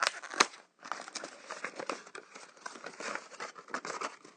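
Surprise-egg packaging crinkling and tearing as it is opened by hand, with two sharp snaps near the start.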